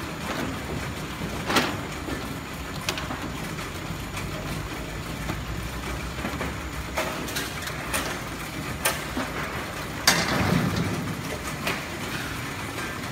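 Steady hum of fans and fruit-sorting machinery, broken by irregular knocks and clatters from mangosteens being handled at a sorting table. The loudest clatter comes about ten seconds in.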